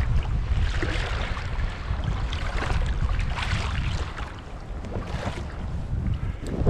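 Wind buffeting the microphone in a steady low rumble, with small waves lapping and splashing in the stony shallows.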